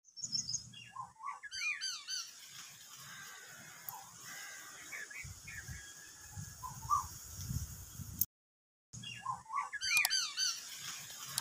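Several birds chirping and calling in quick, sweeping notes, with bursts of chatter near the start and again near the end. A low wind rumble on the microphone comes in through the middle, and the sound cuts out for a moment about two-thirds of the way through.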